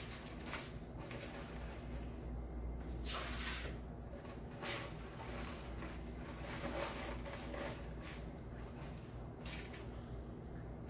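Soft, intermittent rustling and crinkling of deco mesh and wired ribbon as hands work them into a swag, with a few louder rustles around three to five seconds in and near the end.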